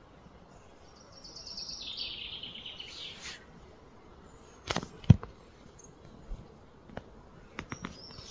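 Outdoor ambience: a high chirping trill that steps down in pitch over about two seconds, then a few sharp clicks and knocks, the loudest about five seconds in.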